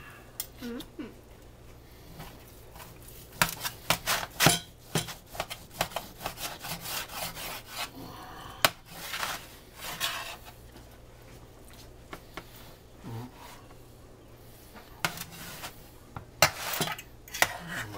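A knife sawing through a smoked beef roast and scraping on the cutting board, in short spells of strokes with sharp clicks and taps from the knife and carving fork. A faint steady low hum runs underneath.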